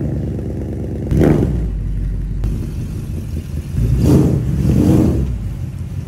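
Ford Mustang Mach 1's 5.0 V8 idling and being revved, through catted long-tube headers and the stock mid-pipe with resonator and factory mufflers. One quick rev comes about a second in, then two more in quick succession near the end.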